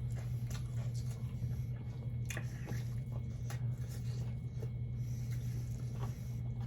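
Close-miked eating sounds from a meal of fried catfish and rice: wet chewing and lip smacks with scattered short clicks, over a steady low hum.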